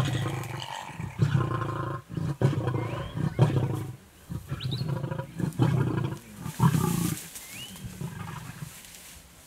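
Lionesses growling in low, repeated rumbles as they feed on a warthog kill, with short clicks and smacks from the feeding mixed in.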